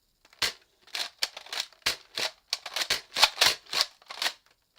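Plastic Nerf Mega Magnus blaster being handled and worked: an irregular run of quick plastic clicks and rattles, some louder than others.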